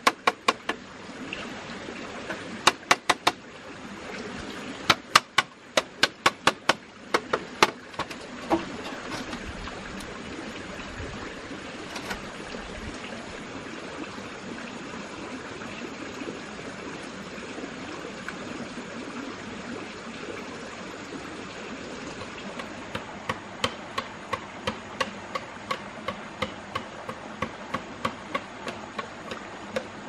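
Sharp taps of a hard tool striking green bamboo as a bamboo table frame is fitted together. They come in quick runs during the first eight seconds, then at a steady two or three a second near the end. Under them runs the steady rush of a stream.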